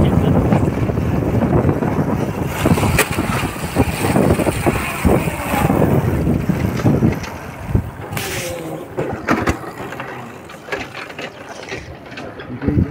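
Wind buffeting the microphone of a moving motorcycle, mixed with engine and road rumble and a few knocks. The rumble eases off about seven seconds in.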